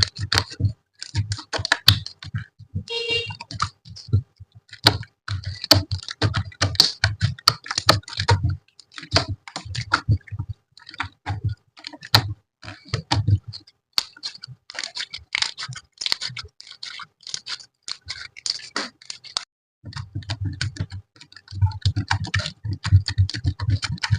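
Slime being squeezed and poked by hand: fast, irregular runs of sticky clicks and crackling pops over soft low thuds, in bursts with short pauses between them. A short squeaky tone sounds about three seconds in.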